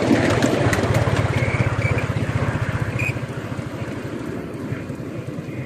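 Ride-on miniature garden-railway locomotive running along the track, with a rapid, even low beat that slowly fades, and a few brief high squeaks about a second and a half and three seconds in.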